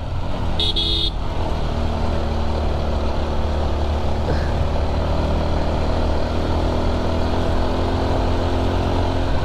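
Motorcycle engine running steadily under load while climbing a hill road, with wind rumbling on the microphone. A brief high-pitched tone sounds about half a second in.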